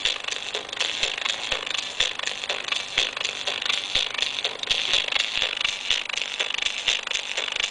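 Homemade op-amp class-D amplifier playing through a speaker: a steady harsh hiss with constant crackling clicks, the sound strongest in the upper mids.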